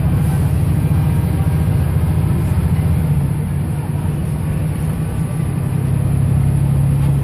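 Scania L94UB city bus's diesel engine running, heard from inside the passenger cabin as a steady low drone.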